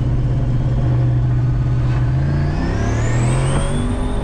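Turbocharged LSA V8 of a 1987 Chevrolet Caprice Landau, heard from inside the cabin while driving, running with a steady low hum. About two seconds in, a high turbo whine rises sharply as the 80mm turbo spools, then holds.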